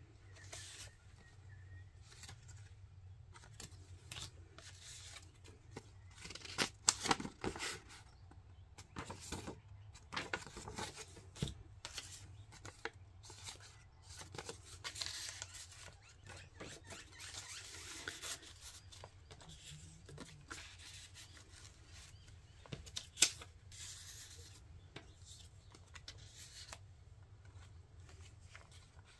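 Paper rustling and sliding as the dyed pages and cardstock tags of a handmade junk journal are handled, pulled out and turned. Scattered soft rustles with a couple of sharper taps, one about seven seconds in and one past the twenty-second mark.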